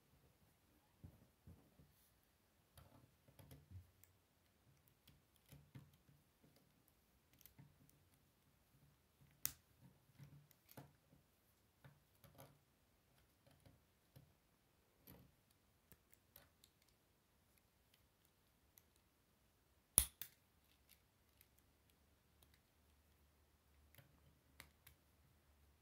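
Plastic K'Nex rods and connectors being handled and snapped together: scattered soft clicks and rattles, with two louder sharp snaps, one about nine seconds in and the loudest about twenty seconds in.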